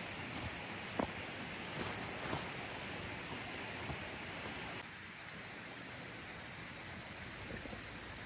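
Steady rushing of a mountain headwater stream, with a few light clicks and rustles in the first half, the sharpest about a second in. Just under five seconds in, the rushing drops a little in level.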